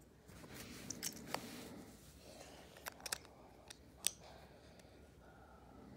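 Plastic LEGO pieces being handled: a soft rustle with a run of sharp little clicks and clacks, the loudest about four seconds in.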